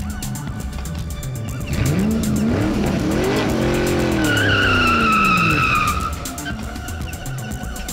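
Car sound effect: an engine speeds past, its pitch rising and then falling, and a tyre screech that slides down in pitch comes in about halfway through, over background music.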